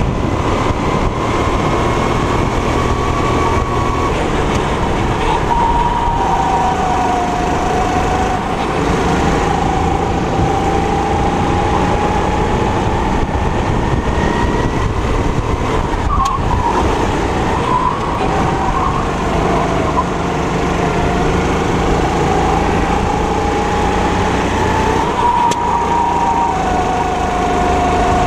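270 cc four-stroke kart engine running hard on track, its pitch rising and falling over several seconds with the throttle through the corners, unsettled briefly around the middle.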